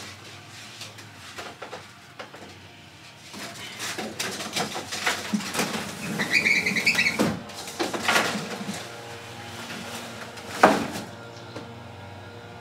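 Lawn mowing equipment running outside, a steady low drone heard through an open window, under knocks and rustles of the camera and blinds being handled. A bird chirps for about a second near the middle, and a louder knock comes near the end.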